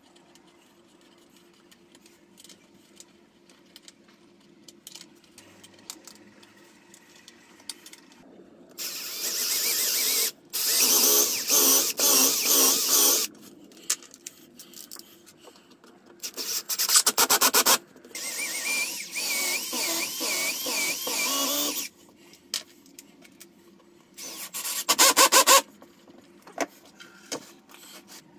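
Cordless drill with a countersink bit boring into pine table-leg frames, running in several bursts of a few seconds each, the pitch wavering as it cuts. Two shorter bursts have a fast rattling texture. Before the drilling, there are only faint clicks of handling.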